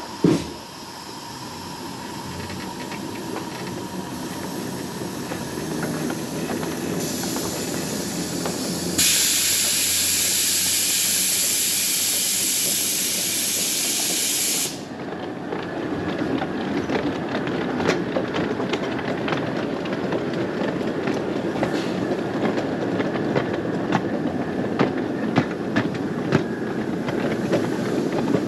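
Ridable miniature railway locomotive rolling along the track, with a steady rumble of wheels on rail. Partway through, a loud steady hiss runs for about six seconds and cuts off suddenly; after it, irregular clicks from the wheels passing over rail joints.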